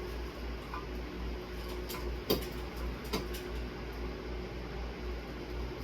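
Sharp clicks and clinks of small metal tools and parts being handled, two louder ones a little over two and three seconds in, over the steady low hum of a running fan.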